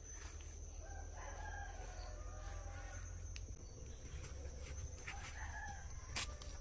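A rooster crowing once, followed by a shorter call about five seconds in.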